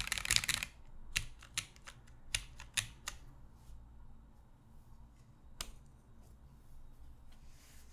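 Mechanical keyboard with vintage Cherry MX Black linear switches on an aluminium plate: fast typing that stops under a second in, followed by a handful of single key presses and one more a couple of seconds later, then only faint clicks.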